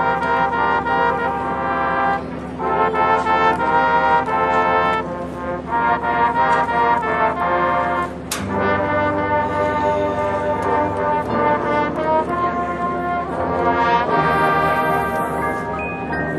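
Marching band brass section playing loud sustained chords in short phrases with brief breaks, with a sharp percussion hit about eight seconds in.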